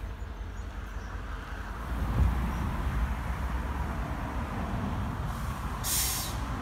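Distant Metro-North diesel passenger train passing, a low steady rumble that grows louder about two seconds in. A brief hiss near the end.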